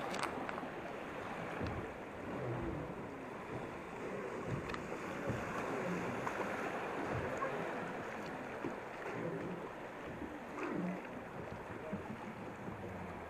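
Rapids rushing and churning beside a wooden river boat as it runs through whitewater, a steady hiss of fast water.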